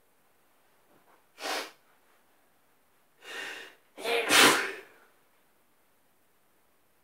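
A person sneezing. A short burst comes about a second and a half in, then a voiced wind-up, then one loud sneeze about four seconds in.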